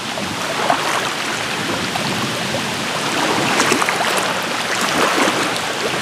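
Choppy lake waves washing and splashing against rocks at the water's edge: a steady rushing wash with small splashes here and there.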